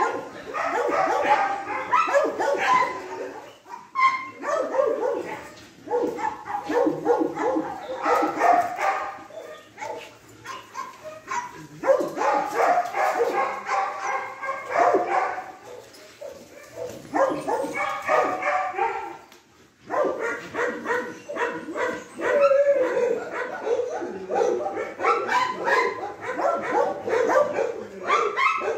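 A pack of dogs barking, yipping and whining at once, overlapping in long runs that break off into short lulls several times.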